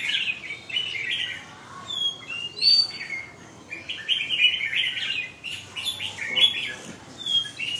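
Several caged red-whiskered bulbuls singing: quick chattering warbles overlapping, broken by clear whistled notes that slide downward.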